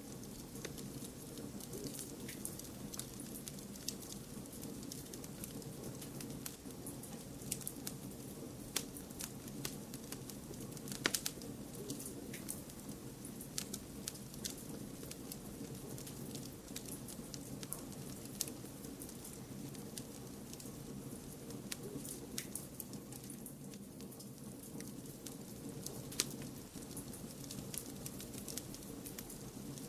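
Wood fire crackling, with irregular sharp pops, one louder near the middle, over a steady low rushing noise.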